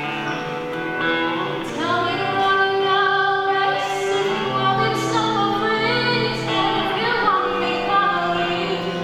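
A girl singing solo, live, with vibrato, over instrumental accompaniment; her voice comes in about two seconds in after held accompaniment notes.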